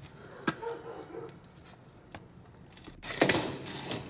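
Hand banging on a house window: a few faint clicks, then about three seconds in a loud burst of rapid knocks and rattling.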